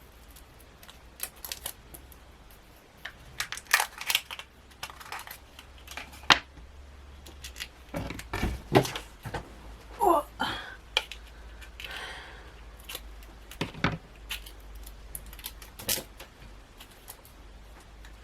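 Hands handling and unwrapping craft packaging: irregular clicks, taps and crinkling rustles, with a short squeaky rub about ten seconds in.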